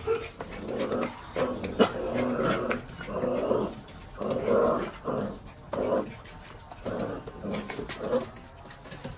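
Corgi puppy growling in short rough bursts, about one a second, with scattered sharp clicks of dry kibble and a metal bowl as it eats.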